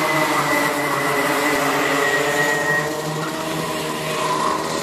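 Several Rotax two-stroke racing kart engines running at high revs as a pack of karts goes by, their overlapping pitches drifting slowly, with a swell about four seconds in as more karts pass.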